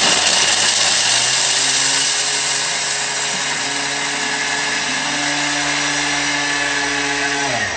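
Thermomix food processor grating chunks of hard parmesan cheese at high speed: a loud, steady grinding whir of blade and motor that winds down in pitch and stops near the end.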